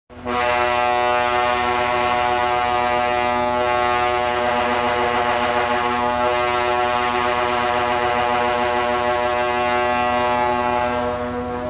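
Horn of a Kora-Kora swing-boat fairground ride giving one long, unbroken blast at a single steady pitch, the signal that the ride is about to start; it drops a little in loudness near the end.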